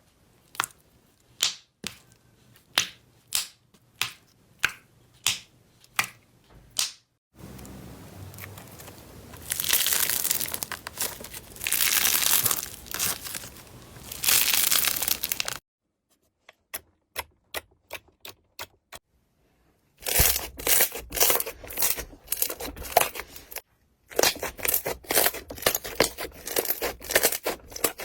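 Slime being played with close to the microphone: a run of sharp pops about every half second, then long spells of crisp crackling and crinkling, stopping abruptly several times between clips.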